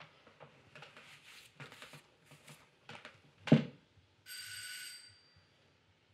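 Light clicks and scrapes of cutlery on a plate, then a sharp knock on the table about three and a half seconds in. An electric doorbell then rings once, a steady ring lasting about a second.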